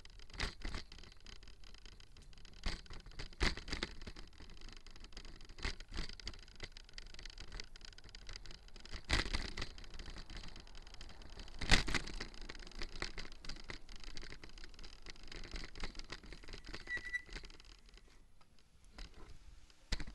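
Irregular knocks, rattles and scrapes from a bicycle being ridden, over a low rumble, with the loudest knock about 12 seconds in. A brief high squeak comes near the end, then the noise drops away.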